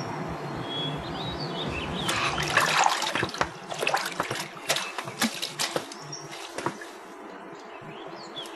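Water sloshing and splashing as clothes are washed by hand in a wooden tub. It comes as a run of irregular splashes from about two seconds in, easing off after six seconds, with birds chirping faintly.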